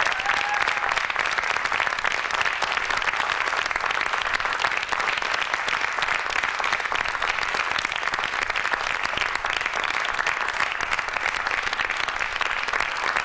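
Audience applauding steadily for a curtain call, with one short whoop right at the start.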